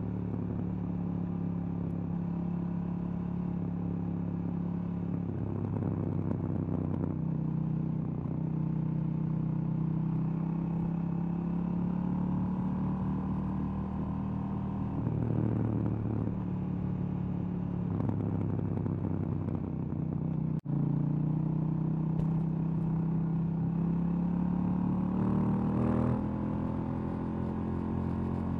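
2018 KTM 790 Duke's 799 cc parallel-twin engine, stock exhaust, heard from the saddle while riding. The engine note shifts in steps several times, dropping and then climbing again as with gear changes, with a rising rev near the end before the pitch drops again. There is a momentary gap in the sound about two-thirds of the way through.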